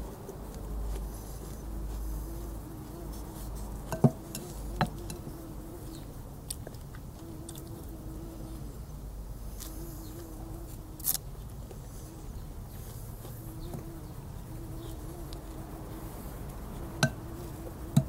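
A person eating from a wooden spoon with lip smacking and slurping mouth noises, broken by four sharp clicks.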